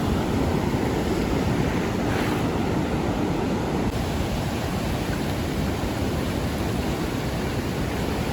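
Ocean surf washing in with a steady rush of waves.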